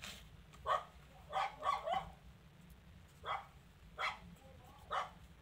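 A dog giving about seven short barks, three of them in quick succession between one and two seconds in.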